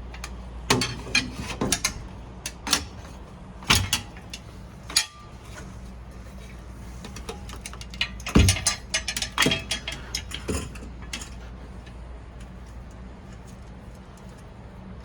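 A bicycle front fender and its mounting hardware being handled and fitted to the fork: irregular clicks, clinks and knocks in two clusters, the second about eight seconds in, over a steady low hum.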